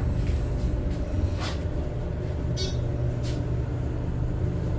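Elevator car travelling between floors: a steady low rumble with a faint steady hum, and a few brief clicks and rattles in the middle.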